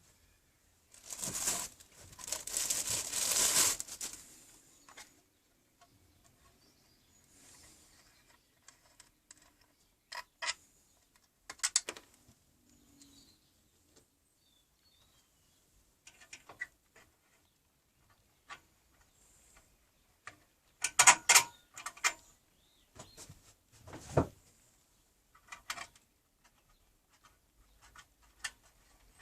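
Handling of a new benchtop scroll saw and its packaging: a few seconds of rustling about a second in, then scattered clicks and knocks as parts are picked up and set down.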